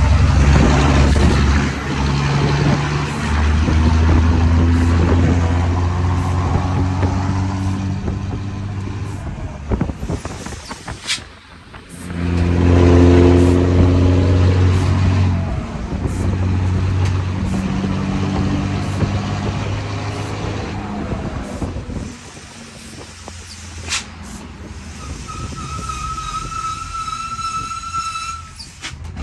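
Mercedes-Benz 1620 truck's diesel engine, with a reworked injection pump, rumbling loudly in several surges that rise and fall. Near the end it drops to a quieter running level, and a steady high whistle sounds for a few seconds.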